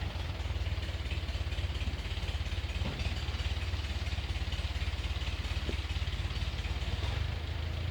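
An engine idling steadily, with a fast, even low pulse.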